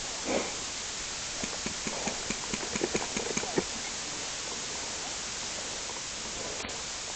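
A quick, uneven run of about a dozen sharp clicks or knocks over about two seconds, over a steady hiss.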